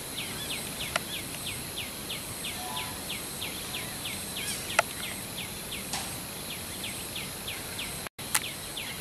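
Insects chirping in a steady rhythm, about three to four short chirps a second, over a continuous high-pitched insect drone. A few sharp clicks sound on top.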